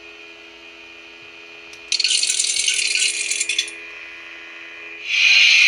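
Lightsaber hum from a Proffie soundboard through a small bass speaker in the hilt, steady and low, broken about two seconds in by a loud harsh hissing effect lasting under two seconds. Near the end the hum cuts off and a second loud hissing effect sounds.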